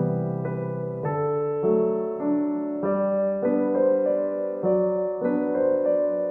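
Background music: a soft piano or electric piano piece, its chords changing about every half second over a bass line.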